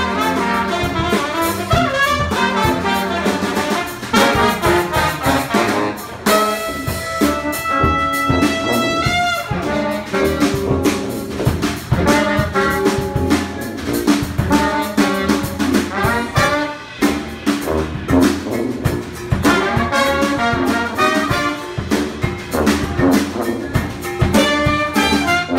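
Brass band playing a jazz tune live: trumpet, trombone, sousaphone and saxophone over a drum kit, with long held notes about six to nine seconds in.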